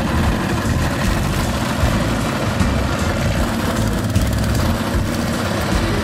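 BAWAD surface-drive mud motor (a longtail outboard) running steadily on a small boat, its propeller churning water just under the surface.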